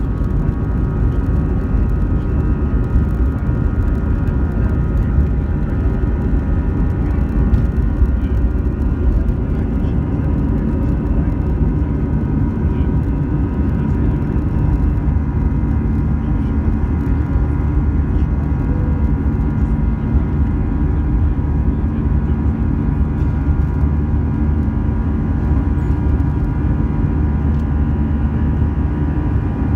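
Airbus A320's CFM56 turbofan engines at takeoff thrust, heard inside the cabin just behind the wing, through the takeoff roll, lift-off and climb. A steady loud rumble with a buzzing whine of many steady fan tones over it.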